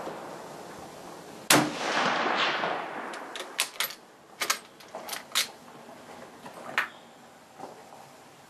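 A single shot from a Type 99 Arisaka bolt-action rifle about a second and a half in, with a long echo trailing off. It is followed by a quick run of metallic clacks as the bolt is worked to eject the spent case and chamber the next round, and a couple of fainter clicks near the end.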